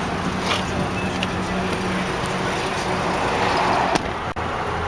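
A motor vehicle's engine running steadily with a low hum, with a couple of sharp knocks about four seconds in.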